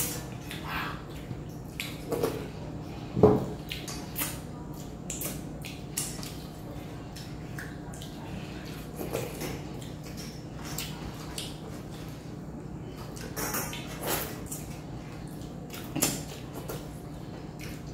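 Fingers wiping and scraping empty stainless steel thalis clean, in scattered short scrapes and light clicks on the metal, with one sharper, louder knock about three seconds in. A low steady hum runs underneath.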